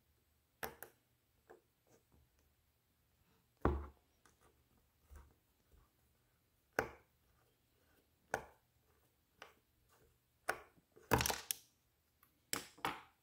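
Precision Torx screwdriver working a small case screw out of a hard drive's metal cover: irregular sharp metal clicks and knocks as the bit turns and shifts in the screw head, with a quick run of clicks near the end as the screw comes free.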